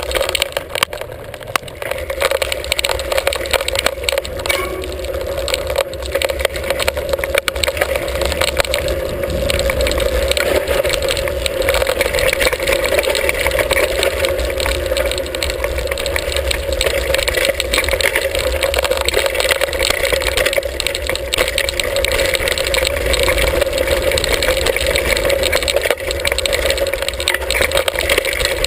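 Mountain bike riding over a rocky dirt trail, heard through a handlebar-mounted camera: a steady rush of wind and tyre rumble with constant rattling and clattering of the bike over stones.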